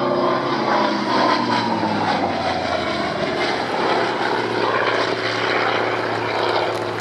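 Hawker Sea Fury T.20's Bristol Centaurus radial piston engine running as the aircraft flies past; its pitch falls over about two seconds as it passes, then the drone holds steady.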